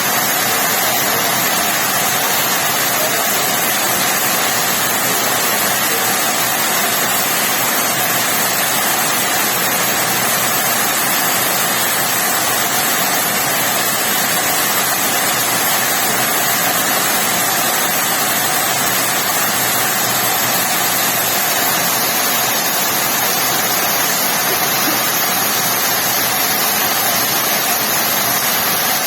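Steady heavy rain, an even unbroken hiss with no separate drops or pauses.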